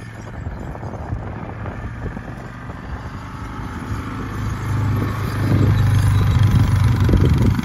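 Yamaha ATV engine running steadily while it pulls a drag harrow across tilled soil. It grows louder as the machine comes close, about five seconds in.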